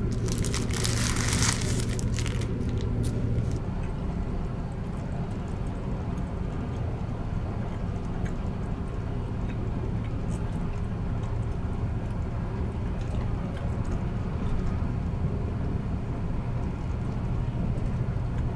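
Plastic film of a convenience-store rice ball crinkling as it is peeled off for the first couple of seconds, then the steady low rumble of the Caledonian Sleeper train running, heard inside the compartment, with a few faint ticks.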